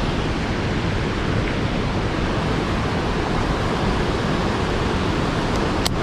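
Steady, even rush of river water spilling over a waterfall close by, with one small click near the end.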